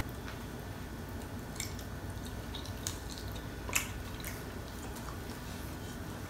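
Faint, scattered wet clicks and squelches of fingers pulling apart a hot, sauce-coated baked chicken wing and biting and chewing it. The loudest click comes a little under four seconds in.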